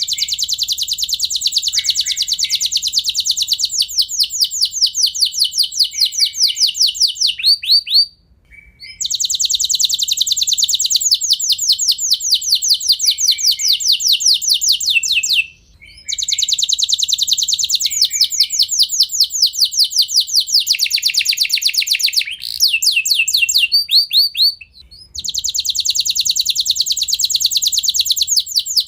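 Domestic canary singing long rolling trills of rapid, evenly repeated high notes. Each roll lasts several seconds, with three short breaks between rolls.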